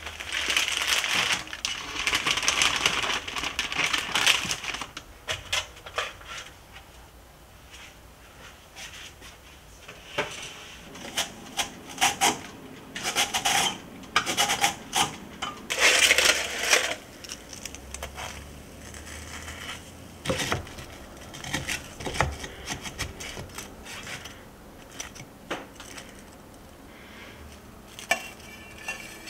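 Kitchen handling sounds: scattered clinks, taps and clatters of cookware, dishes and utensils on a counter. A steady hissing noise fills the first four seconds or so.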